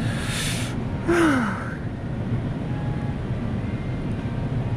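A man's audible breath out, then about a second in a single sigh that falls in pitch, over a steady low rumble.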